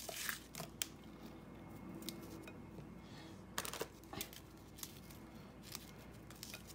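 Oreo cookies being broken up by hand and added to the ice cream mixture: a few faint, scattered clicks and crackles over a quiet background.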